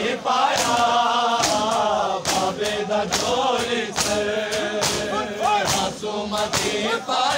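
Men chanting a lament together, with sharp slaps of hands on bare chests (matam) keeping a steady beat, roughly three slaps every two seconds.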